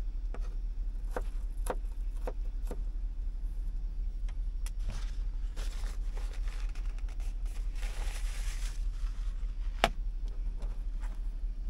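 Light clicks and knocks of things being handled, with a short rustle about eight seconds in and a sharp, louder click just before ten seconds, over a steady low hum.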